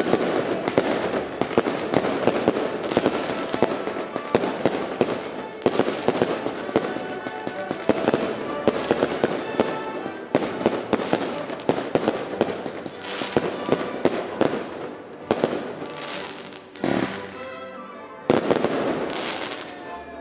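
Fireworks going off in rapid succession: a dense run of bangs and crackling from aerial shells and firecrackers. Near the end it thins out to a few separate loud bangs.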